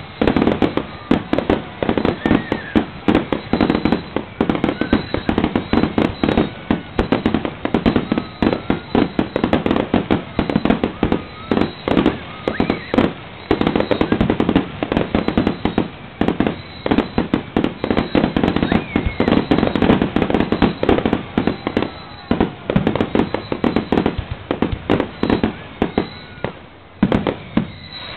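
Fireworks display: a rapid, almost continuous barrage of bangs and crackling from many shells going off together, thinning out near the end.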